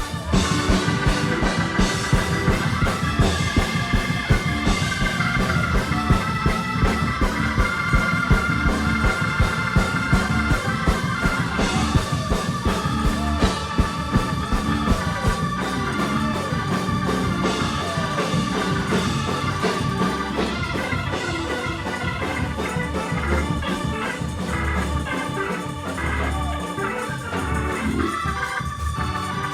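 Organ music with drums keeping a fast steady beat, a praise break in a church service.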